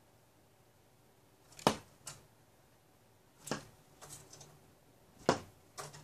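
A woodpecker pecking at a window, sharp knocks in a loose pattern: three loud knocks spaced nearly two seconds apart, each followed by a softer one, with a few light taps between.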